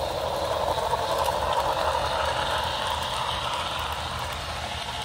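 HO scale model train running on the track, a steady mechanical whir of motor and wheels on the rails that swells as it comes close about a second in and eases slightly afterwards.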